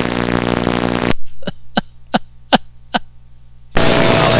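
CB radio receiver audio. A keyed-up transmission carrying a steady buzzing tone cuts off about a second in, then come five evenly spaced sharp pops. Near the end another strong station keys up with a sudden loud rush of static and a steady whine.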